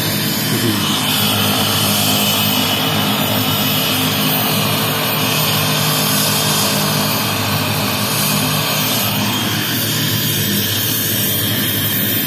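Helicopter running on the ground with its rotor turning: a loud, steady high whine over a low, even hum.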